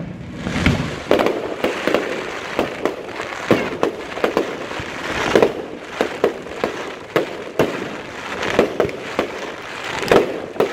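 Aerial firework shells launching and bursting, a rapid irregular string of bangs, several a second at times, over a steady noisy background.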